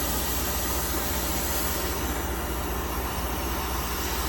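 A steady low machine hum with a faint hiss over it.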